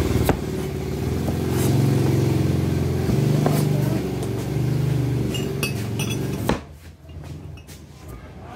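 An engine running with a steady low rumble, which cuts off abruptly about six and a half seconds in. There are a few light clicks shortly before it stops and a single sharp knock near the end.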